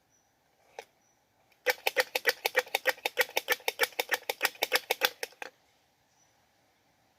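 A squirrel's rapid chattering call: a fast, even run of sharp clicks, about eight a second, lasting nearly four seconds, preceded by a single click. It is the call given as a squirrel calling for a mate.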